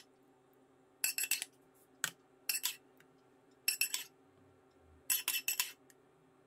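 A utensil scraping and clinking against a frying pan as ratatouille is scooped out and dropped into a baking dish. It comes as about five short bursts of clinks, roughly a second apart.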